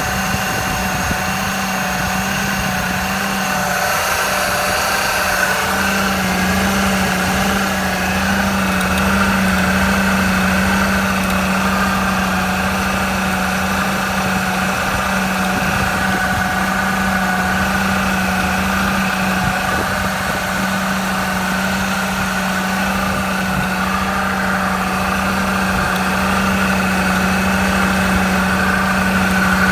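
Mercedes-Benz W203 C-Class engine idling steadily, with a constant hum and a fainter higher whine over it: the odd noise the owner finds weird.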